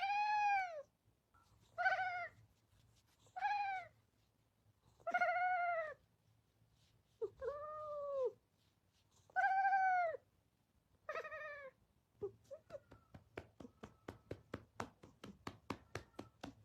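A cat meowing seven times, about a second and a half apart, each meow rising then falling in pitch. In the last four seconds, a quick run of light clicks, about five a second.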